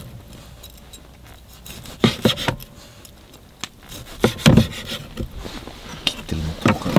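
Intermittent hand-work sounds: short scraping and rubbing strokes with sharp knocks, coming in a few clusters a second or two apart.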